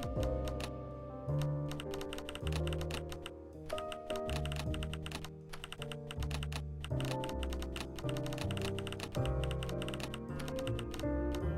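Music with held notes and a changing bass line, with rapid, irregular clicks running over it.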